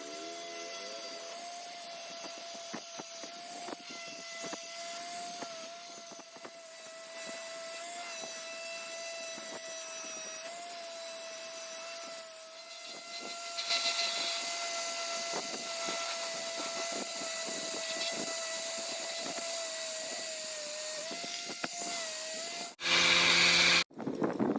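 A power tool's electric motor running at a steady whine, with scattered scraping and clicking from the work. Near the end it breaks off into a sudden, louder burst of noise about a second long.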